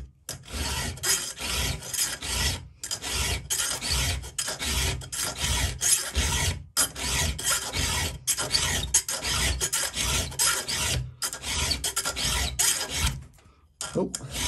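Round chainsaw file rasping against a steel chain cutter tooth in repeated strokes, about two a second, with short breaks every few seconds and a longer pause near the end. The cutter is being filed back to remove damage to its chrome.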